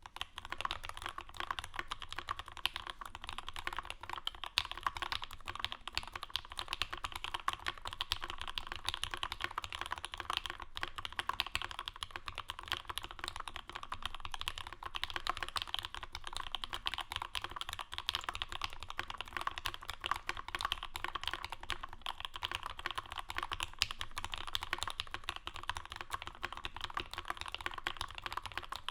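Steady, fast typing on a custom mechanical keyboard with lubed H1 linear switches in an aluminium Bauer case with an aluminium plate, GMK keycaps and no dampening foam. The typing starts right at the beginning and carries on as a dense run of key clacks.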